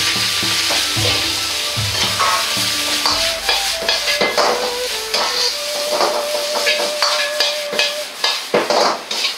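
Vegetables dropped into a hot oiled iron wok hit the oil with a sudden loud sizzle. They keep sizzling while a metal ladle stirs and scrapes them against the wok, with repeated clanks as the wok is tossed.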